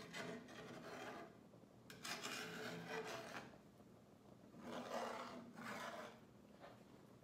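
Metal spatula scraping and stirring thick milk gravy in a cast-iron skillet, in three spells of a second or so each.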